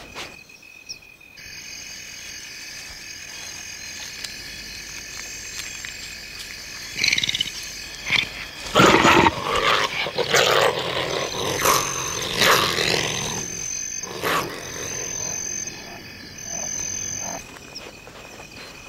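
A wild animal snarling and growling several times, loudest between about seven and fourteen seconds in, over a steady chorus of crickets and other night insects.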